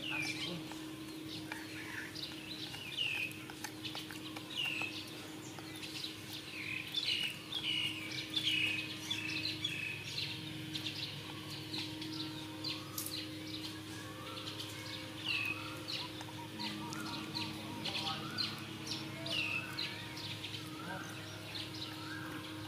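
Birds chirping over and over in short falling chirps, with a steady low hum underneath.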